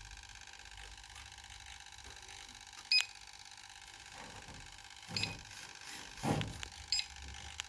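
Three short sharp clicks, each with a brief high ring, about two seconds apart, over a faint steady hum.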